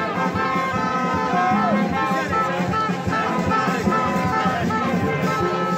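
Music with singing and instruments, playing steadily.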